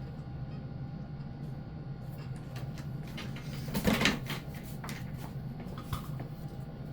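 Clicks and knocks from hands working on a fire alarm horn strobe installation, with one louder clatter about four seconds in, over a steady low hum.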